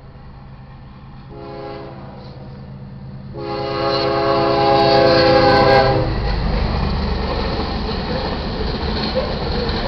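Diesel freight locomotive horn blowing for the crossing: a short faint blast, then a loud long blast that stops suddenly about six seconds in. The train then runs through the crossing with a heavy rumble and the clatter of wheels on rail.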